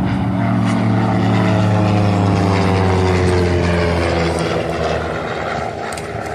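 Propeller airplane flying past overhead; its engine drone falls steadily in pitch as it passes and grows weaker after about four seconds.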